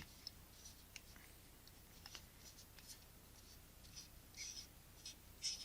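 Faint, light clicks and scrapes of metal lens barrel parts being handled while a threaded part is lined up to be screwed on, a little busier near the end.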